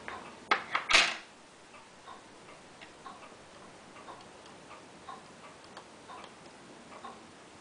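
Sharp metallic clicks as a steel plate is set down onto a tourbillon watch movement, the loudest about a second in. Then faint, even ticking, about two ticks a second.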